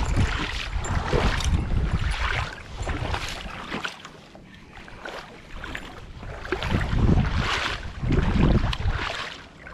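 Wind buffeting the microphone in uneven gusts, a deep rumble with hiss, easing off in the middle and rising again near the end.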